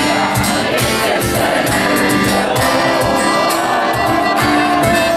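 Live band music led by acoustic guitar, with sung voices and a steady beat.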